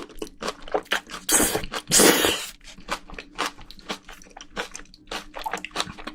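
Close-up crunchy chewing of spicy braised soybean sprouts: a quick run of sharp crackly crunches, with two louder, longer sounds about one and a half and two seconds in.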